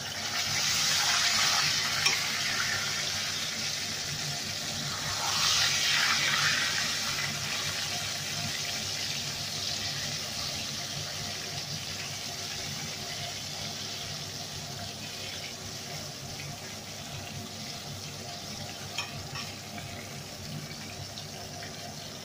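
Fish frying in hot oil in a stainless-steel pot, sizzling steadily, with a fork turning the pieces. The sizzle flares louder twice, right at the start and about five seconds in.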